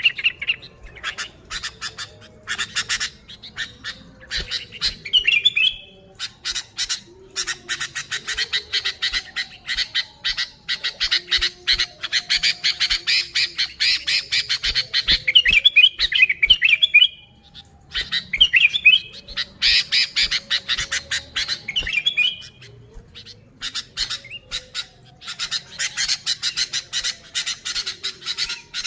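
Sooty-headed bulbul calling excitedly: fast harsh chattering with short warbled phrases every few seconds and a couple of brief pauses.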